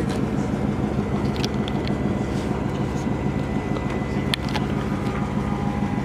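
Car engine idling steadily, with a couple of faint clicks.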